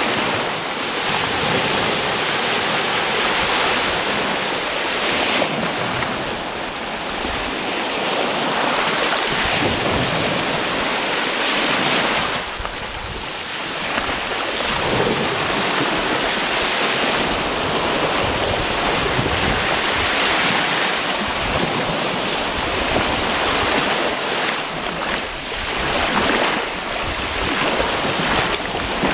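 Mediterranean waves breaking and washing up a beach, a continuous surf noise that swells and eases every few seconds, with wind buffeting the microphone.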